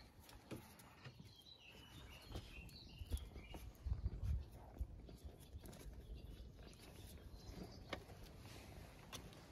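Faint scuffling of a dog and a puppy play-fighting on concrete: paws pattering and scraping, with a few soft thumps about four seconds in.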